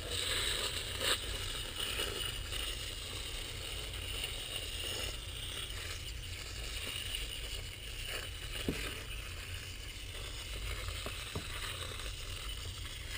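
Foaming coil cleaner being sprayed onto a dirty HVAC evaporator coil: a steady hiss, with a few small clicks and knocks from handling.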